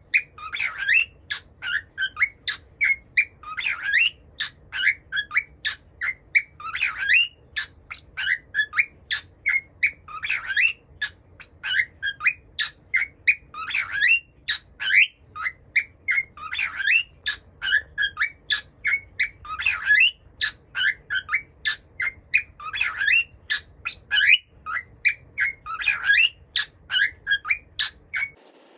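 Cockatiel repeating its quirky call phrase over and over, about once every three seconds: short piping whistles, then croaky 'gero-gero' notes and a drawn-out 'fii'.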